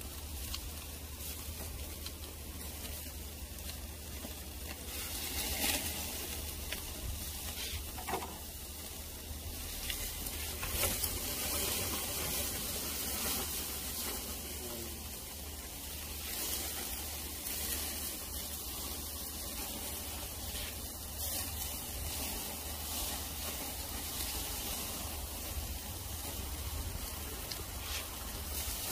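Cubes of meat sizzling on a wire grill over burning charcoal: a steady hiss, with scattered sharp crackles now and then as the pieces are turned.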